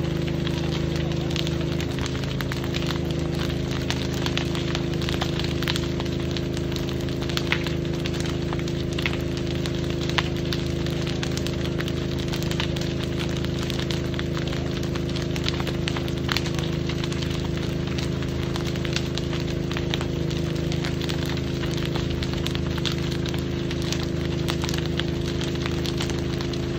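A burning building crackling and popping irregularly, over a steady low hum.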